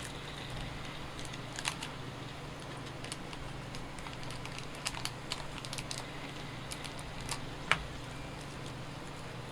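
Scattered small clicks and light rattles of small electronic parts being rummaged through in a plastic Arduino starter-kit case, with one sharper click near the end. A steady low hum runs underneath.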